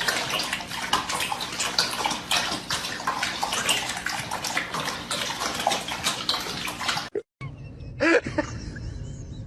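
Water splashing and sloshing in a bathtub, which stops abruptly about seven seconds in. Near the end comes a brief pitched call over a low hum.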